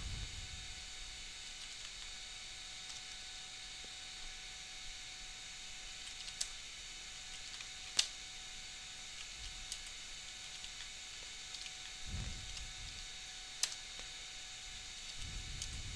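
Faint computer keyboard typing, scattered key clicks with a few sharper ones, over a steady hiss and low electrical hum. Two short low rumbles come near the end.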